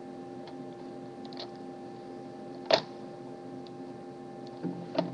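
A steady low electrical hum with a few scattered clicks: the loudest click comes a little under three seconds in, and another just before the end.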